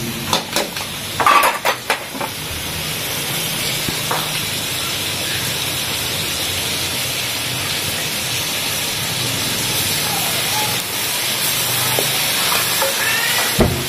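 Chicken pieces and green chillies sizzling steadily in hot oil in a large pot as tomato purée is scraped in. There are a few sharp clicks near the start.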